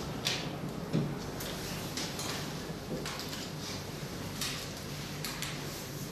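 Scattered light clicks and scrapes of a hand tool working the screws that fix a diode laser machine's handle piece, with a handful of short knocks spread through.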